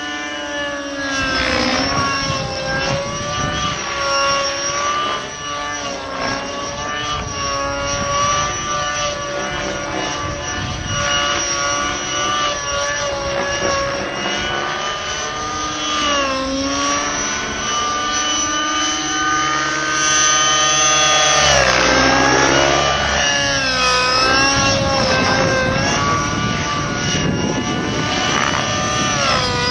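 Align T-Rex 600N nitro RC helicopter flying aerobatics: its glow engine and spinning rotors give a continuous high whine whose pitch dips and recovers several times as it manoeuvres. It is loudest in the last third.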